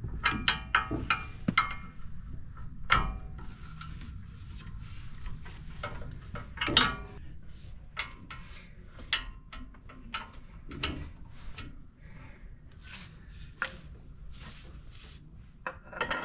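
Steel hand tools clinking and knocking against a truck's front brake caliper bracket as a wrench and a long ratchet are fitted to and worked on the bracket bolts. Irregular metallic clicks and clanks, a few ringing briefly, with the loudest knocks about three seconds in and near the middle.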